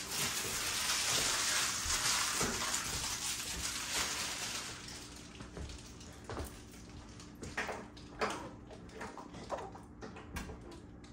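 A steady hiss of unclear origin that fades out over the first half, followed by scattered clicks and knocks of handling as a knobby dirt-bike tire is lifted off a wooden table near the end.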